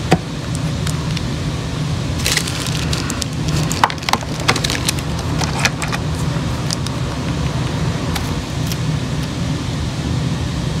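Gel nail polish bottles clicking and knocking against a plastic box insert as they are picked out and handled, a cluster of sharp clicks between about two and six seconds in, over a steady low hum.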